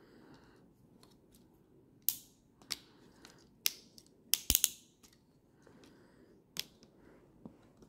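Sharp plastic clicks and clacks of a transforming robot tank figure being handled and posed, its ratchet joints clicking and parts knocking together. There are about six separate clicks, with the loudest, a quick run of three, in the middle.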